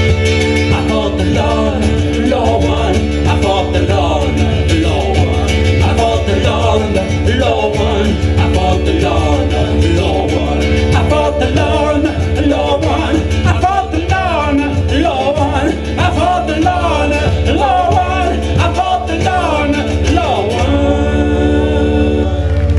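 Folk band playing an instrumental passage: uilleann pipes play a winding melody over their steady drones, with strummed mandola, cajon and double bass. Near the end the melody stops and the band holds the final chord.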